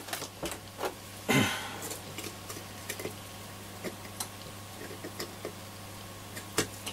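Small metallic clicks and ticks from the sheet-metal can of a transistor radio module as its tabs are prized up with a tool, the sharpest click about a second and a half in, over a steady low hum.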